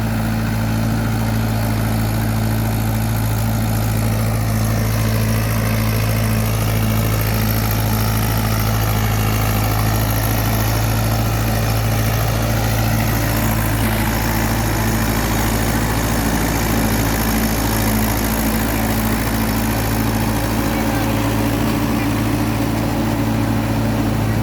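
Tractor engine running at a steady speed, a low even drone that holds unchanged throughout.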